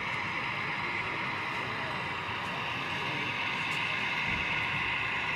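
Steady engine drone from the sound decoder of a passing OO gauge model Class 52 'Western' diesel-hydraulic locomotive, growing a little louder toward the end, over the chatter of an exhibition hall crowd.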